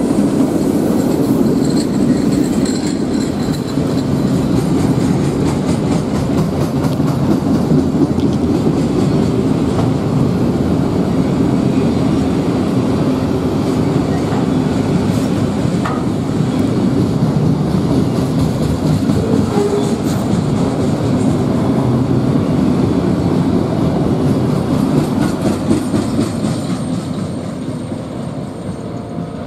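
A freight train's cars rolling past on the rails, a steady clatter of wheels and cars that fades over the last few seconds as the train goes by.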